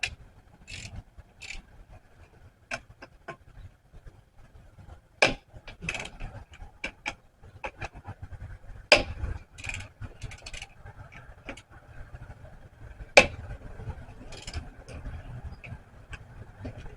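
Scattered metal clicks and clinks of lug nuts and a hand lug wrench being worked by hand on a car wheel, with a few sharper knocks about 5, 9 and 13 seconds in.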